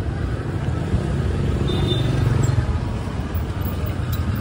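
A small motor vehicle's engine running close by over steady street traffic noise, getting louder about two seconds in.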